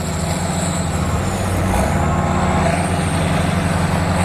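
Heavy diesel earthmoving machine running steadily under load, with a faint high whine that rises slightly about two seconds in.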